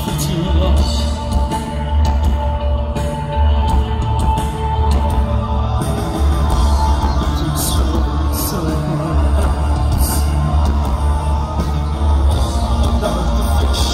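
Post-punk band playing live, heard loud from the audience: a heavy pulsing bass, drums and a held synth note, with a voice singing over it; cymbal strokes come in about halfway.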